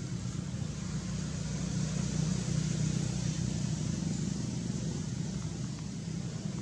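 A motor vehicle's engine hum, low and steady, swelling slightly about two seconds in and easing again, as if a car is passing.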